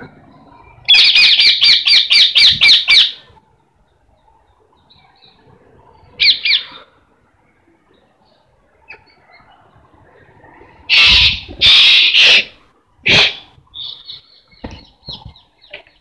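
Parrot squawking. A rapid run of about nine loud, harsh calls comes about a second in, then a single call, then a burst of loud screeches in the second half that tails off into softer chatter.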